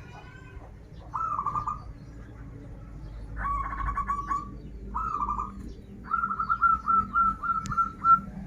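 Zebra dove (perkutut) cooing in short rolling staccato phrases: one about a second in, another around three and a half seconds, one at five seconds, then a longer run of repeated coos from about six seconds until just before the end. A brief sharp click comes near the end.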